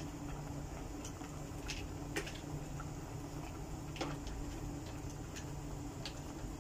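Pot of vegetable broth boiling on a gas stove: a steady low rumble and hiss with scattered small sharp pops.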